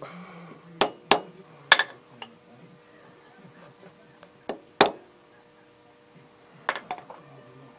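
A hammer tapping a metal workpiece down into a milling-machine vise to seat it: three sharp taps in the first two seconds, two more about halfway through and a quick cluster near the end.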